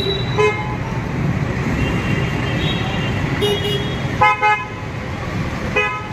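Vehicle horns honking in short blasts over steady road-traffic rumble, the loudest a double honk about four seconds in.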